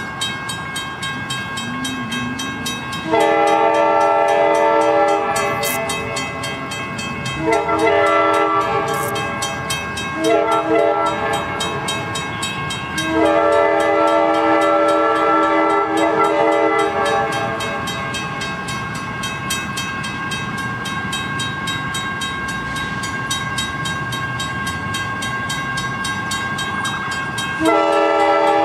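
Diesel freight locomotive's air horn sounding the grade-crossing pattern as the train approaches: long, long, short, long, then another long blast near the end. The locomotive's engine and the train's rumble carry on under the blasts, with a steady high ringing tone throughout.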